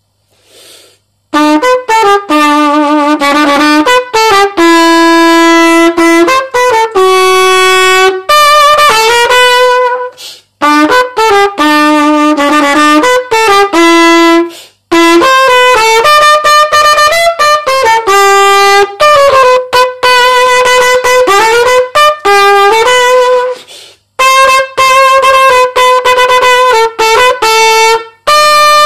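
Solo unaccompanied trumpet playing a tune, starting about a second in, in short melodic phrases with brief pauses for breath between them.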